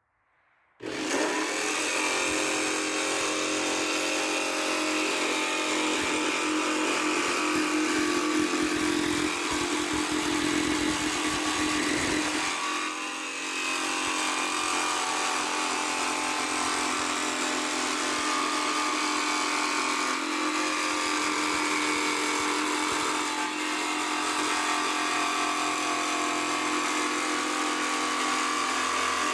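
Jigsaw with a metal-cutting blade starting up about a second in and running steadily as it saws through a thin sheet-metal car fender, easing off briefly partway through.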